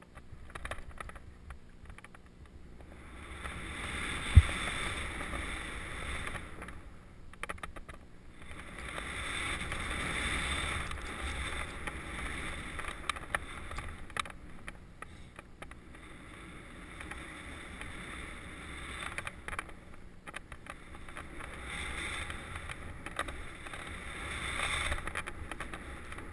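Skis swishing through deep powder snow, a hiss that swells and fades with each turn. A single sharp thump about four seconds in.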